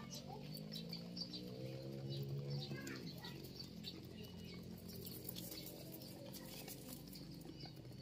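Pigeons and doves pecking grain off a concrete surface: a scatter of quick light taps and pattering, thickest in the second half. A low steady drone runs under it for the first three seconds.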